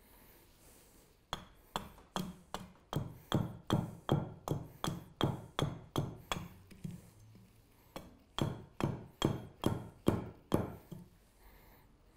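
Small carving axe chopping into an alder spoon blank braced on a chopping block. It goes in a run of quick strikes, about three a second, then after a short pause a second run of about eight strikes.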